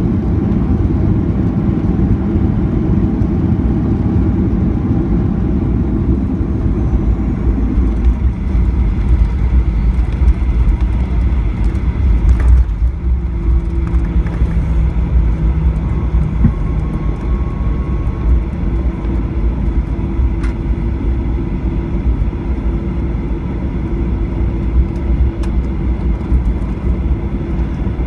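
Cabin noise of a Boeing 737-700 rolling on the runway after landing: a loud, steady low rumble of wheels and CFM56 engines. About halfway through the rumble eases a little and a steady engine hum comes through.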